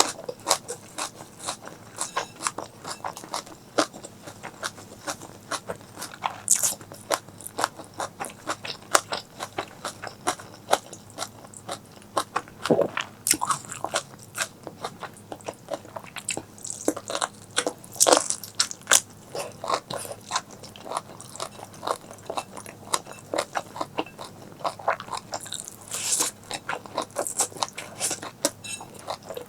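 Close-miked eating: a person biting and chewing food, with a dense, irregular run of crunches and crackles and a few louder bites scattered through.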